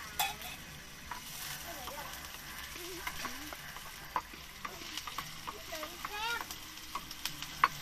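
Chopped garlic and red onion sizzling in hot oil in a frying pan while being stirred with a spoon, the spoon clicking and scraping on the pan now and then: the garlic and onion being sautéed as the first stage of adobo.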